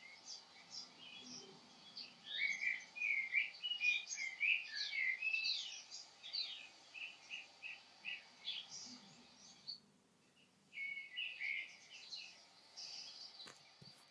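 Several songbirds singing and chirping, busiest a few seconds in, dropping away briefly past the middle and then resuming. A single soft click near the end.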